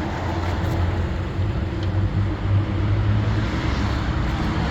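A vehicle driving along a road, with a steady low engine drone under tyre and wind noise.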